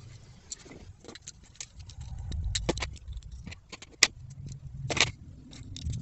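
Fingerboard trucks and tiny screws being worked with a small screwdriver: scattered light clicks and small metal rattles, a few sharper clicks about two and a half, four and five seconds in, over a low background rumble.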